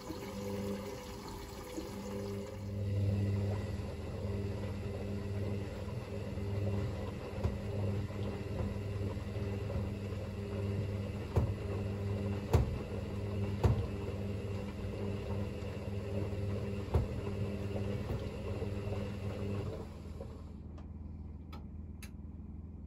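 Hoover VisionTech washing machine turning its drum in the wash phase of a cotton cycle: a steady motor hum with water sloshing, a few sharp knocks, and the motor stopping about twenty seconds in.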